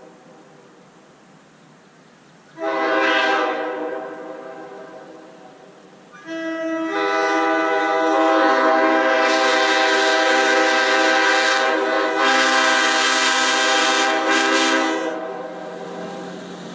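Multi-chime air horn sounding a chord of several tones at once. A short blast about two and a half seconds in dies away, then a long blast begins about six seconds in and is held for roughly eight seconds before it fades near the end.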